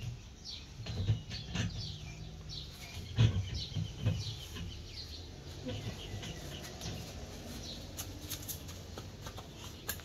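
Thumps and knocks from a toddler handling the rotating painted cylinders of a playground picture-puzzle wall. The loudest come at the start and about three seconds in, with short high chirps through the first half.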